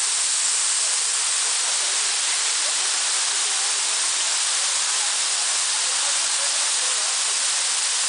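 Waterfall pouring down a rock face, a steady rush of falling water and spray, mostly high hiss.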